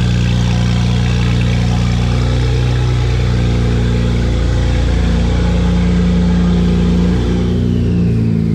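BMW N54 twin-turbo straight-six idling steadily while it warms up from cold.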